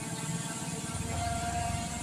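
Brushless motors and propellers of an SJRC F22 S3 PRO camera drone whirring steadily at a held speed, run to warm up after a long time without flying. A low rumble comes in about a second in.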